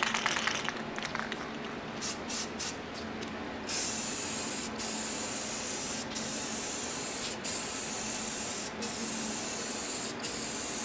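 Aerosol spray can spraying a coat of clear finish onto a plywood panel: a few short spurts, then a steady hiss from about four seconds in, broken by brief pauses roughly every second and a half between passes.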